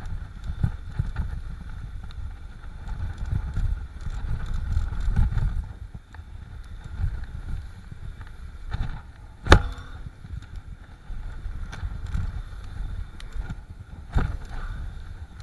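Wind buffeting the microphone over the rumble and rattle of a mountain bike rolling fast down a dirt trail, with one sharp knock a little past halfway and a smaller one near the end.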